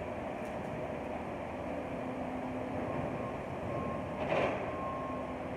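Skid-steer loader and excavator working a pile of construction and demolition debris: steady diesel machinery noise, with a short burst of clatter about four seconds in.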